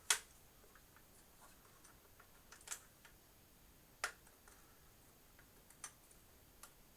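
Scattered sharp clicks and knocks of a hard drive and its plastic-and-metal drive mount being handled: one loud click at the start, then four more spaced a second or two apart, the last faint.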